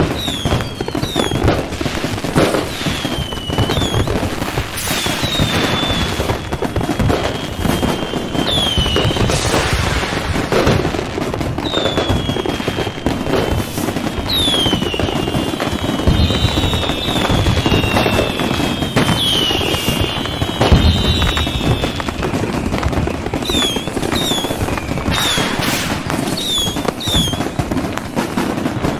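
Fireworks display: a dense, continuous crackle of bursting shells and firecrackers with occasional deep booms, and many short high whistles gliding in pitch, several overlapping in the middle of the stretch.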